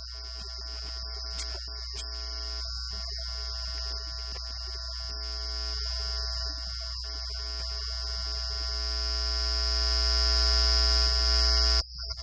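Steady electrical hum and buzz, a deep mains-type hum under several fixed higher tones, growing slowly louder and cutting off suddenly near the end.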